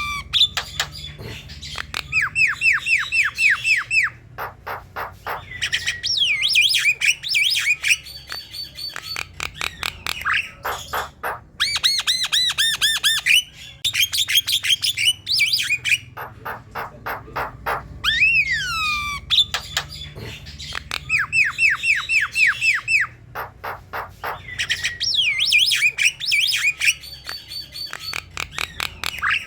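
Javan myna singing a loud, varied song: fast runs of harsh repeated chattering notes, whistled rising and falling glides and sharp clicks. The same song sequence comes round again about every 20 seconds, as a looped recording used to lure other mynas into singing.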